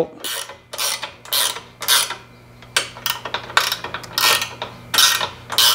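Ratchet wrench clicking in short strokes, about two a second, as it turns the bolt that tensions the gantry's timing-belt drive. Each stroke loosens or takes up the tension of the drive belt.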